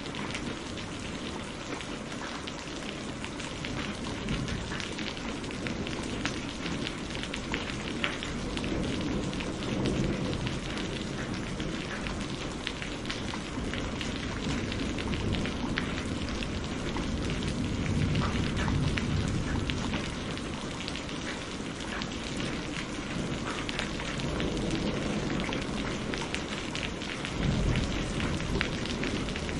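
Heavy rain falling steadily, with a dense patter of individual drops striking. Low thunder rumbles swell up several times, the strongest near the end.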